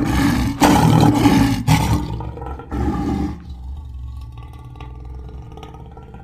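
Lion roaring: several loud roars in the first three seconds or so, then a quieter, lower rumble that fades away near the end.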